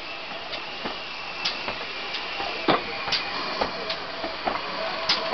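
GWR 4575-class 2-6-2 tank locomotive No. 5526 rolling slowly past, with irregular metallic clanks and knocks from its wheels and motion, roughly one or two a second.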